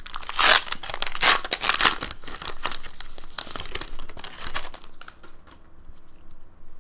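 Foil wrapper of a Pokémon booster pack crinkling and tearing as it is opened, loudest in the first two seconds. After about five seconds it gives way to quieter rustles and ticks as the cards are slid out and handled.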